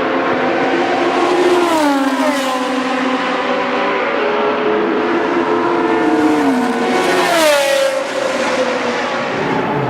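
Several racing cars passing at speed one after another, their engine notes overlapping. Each engine note drops sharply in pitch as its car goes by, about two seconds in, again after six seconds, and most strongly about seven and a half seconds in.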